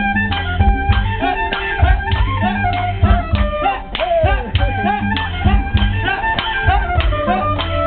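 Live dance music: a saxophone playing a sliding, bending melody over a fast, steady drum beat.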